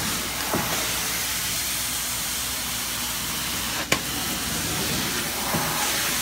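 Truck-mounted hot water extraction carpet-cleaning wand hissing steadily as it sprays hot water, around 230 to 240 degrees, into the carpet and sucks it back up, with a low steady hum beneath. A single sharp click comes about four seconds in.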